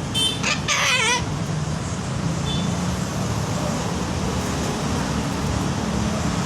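Triton sulphur-crested cockatoo giving two short, wavering vocalizations in the first second or so, over a steady low rumble like distant traffic.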